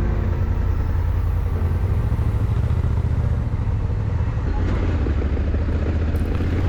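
Honda Africa Twin's parallel-twin engine running steadily as the motorcycle rides along.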